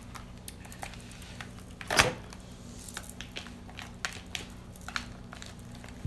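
Light crackles and ticks of a blue silicone mat being pulled away and a cured resin bowl being handled, with one louder rustling knock about two seconds in. A steady low hum runs underneath.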